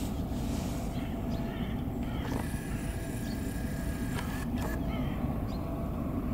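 Steady low outdoor rumble, with a few faint short chirps over it.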